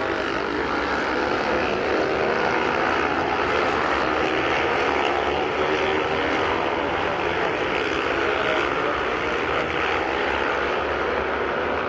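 Engines of several vintage racing motorcycles running hard at high revs. Their overlapping pitches slowly rise and fall as the bikes accelerate and brake around the course.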